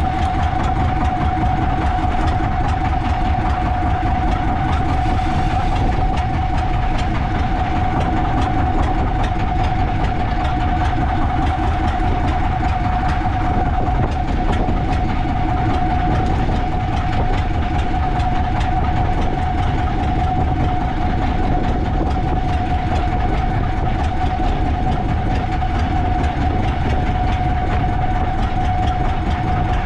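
A boat engine running steadily under continuous noise, with an unchanging whine held on one pitch throughout.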